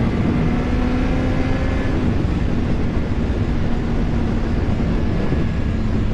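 Sport motorcycle's engine running at a steady cruise, under heavy wind rush on the microphone. Its note creeps up slightly, then eases a little lower about two seconds in and holds there.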